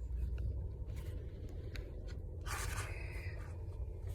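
Steady low rumble inside a car cabin while driving, with a few faint clicks and a brief scratchy rustle about two and a half seconds in.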